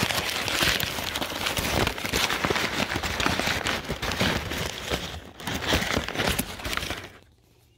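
Packing wrap being crinkled and crumpled by hand as an item is unwrapped, a dense run of rustles and crackles that stops about seven seconds in.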